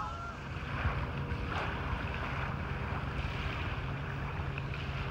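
Wind buffeting the phone's microphone outdoors, a constant low rumble, with a steady low hum joining it about half a second in.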